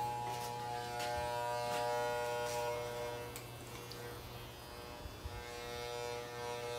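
Electric hair clippers running with a steady buzz that eases a little about four seconds in.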